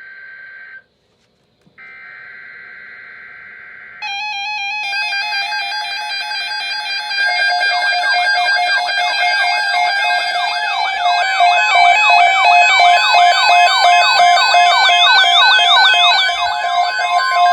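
Emergency Alert System alert: two buzzy data bursts of the digital header with a gap between them, then about four seconds in a loud steady alert tone starts. More steady tones pile on, and from about seven seconds in, fast warbling siren sweeps join and grow louder, with a higher warble added near the middle.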